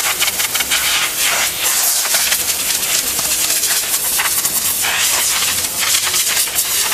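Compressed air hissing hard and steady, swelling and dipping as the jet plays over a perforated metal cylindrical filter element being blown clean.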